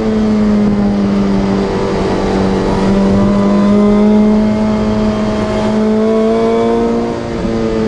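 Supercharged car engine pulling under throttle, heard from inside the cabin, its steady note rising and falling a little, with two brief dips in level where the throttle eases.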